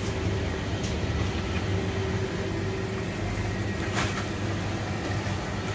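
Steady low mechanical hum of the shop's refrigerated drinks coolers, with two light knocks, about a second in and about four seconds in.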